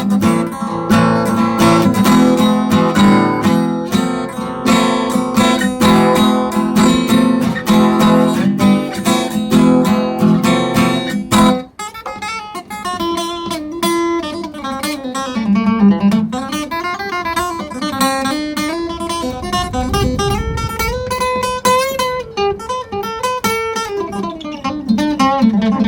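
Acoustic guitar improvising in A minor: strummed chords for the first half, then after a brief break single-note lead lines that climb and fall.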